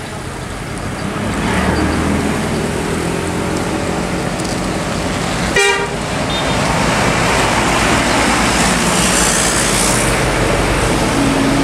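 Hino RK8 R260 bus's six-cylinder diesel running as the coach passes at close range, with a short horn toot about halfway through.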